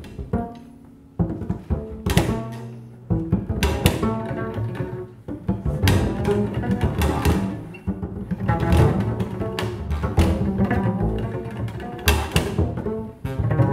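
Two double basses played together in free improvisation, low and dense, broken by many sharp percussive attacks on the strings. The playing is quieter for about the first second, then comes back in loud and busy.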